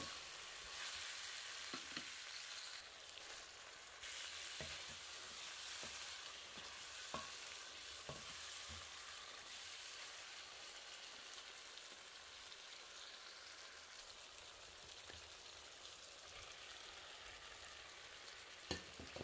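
Chicken pieces and sliced onions sizzling in oil in a karahi, frying steadily as they are stirred with a wooden spoon, with a few light knocks of the spoon against the pan.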